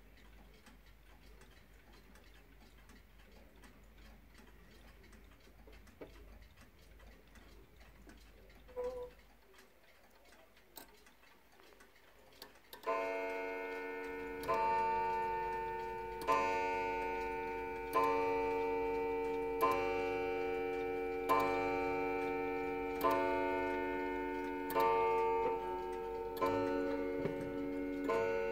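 Antique French crystal regulator clock ticking faintly, then about 13 seconds in starting to strike the hour on its deep coiled gong. Ten strokes fall about 1.7 seconds apart, each one ringing on into the next.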